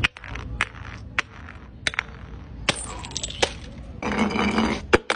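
A glass jar of pickled food breaking on stone tile steps, with a series of sharp clinks and cracks of glass and a louder burst of breaking and scattering near the end.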